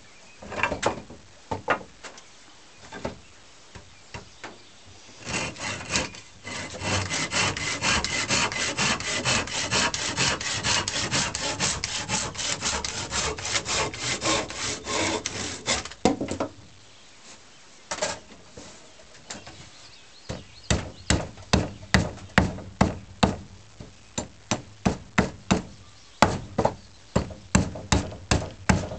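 A hand saw cutting wood in quick back-and-forth strokes for about ten seconds, after a few scattered knocks. After a short pause, a hewing axe chops the wood in rapid blows, about two or three a second.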